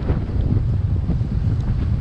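Strong wind buffeting the microphone: a steady, dense low rumble.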